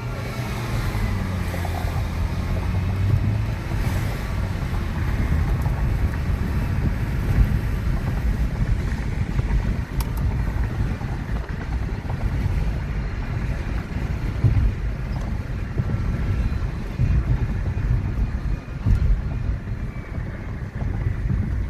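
Vehicle engine rumble with wind buffeting the microphone. A siren fades out in the first few seconds.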